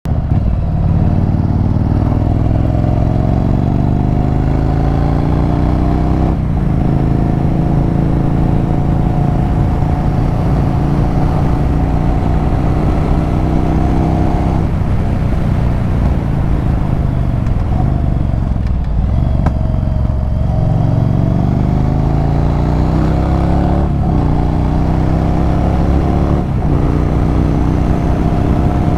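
Yamaha Virago 1100 V-twin motorcycle accelerating hard through the gears, the engine note climbing and then dropping at each gear change. About two-thirds of the way through it eases off and the pitch sinks, then it pulls away again and shifts twice more.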